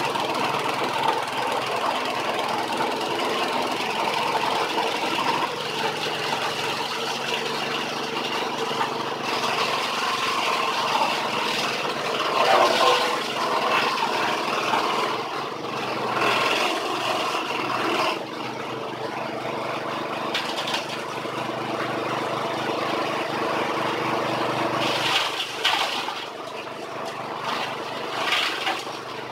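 Small petrol engine running a grass chopper (forage cutter) steadily while long grass stalks are fed into it, with repeated bursts of cutting noise from the blades. The engine note shifts a few times as the load changes.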